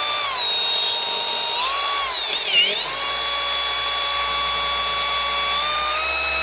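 A Rupes 15 cordless random-orbital car polisher running with a steady high whine. Its pitch wavers and dips sharply about two and a half seconds in, then holds steady and steps up slightly near the end.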